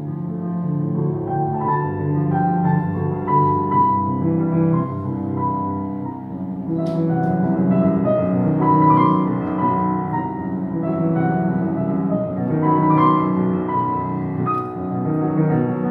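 Steinway grand piano played solo: a flowing piece of held chords under a melody line, continuous throughout.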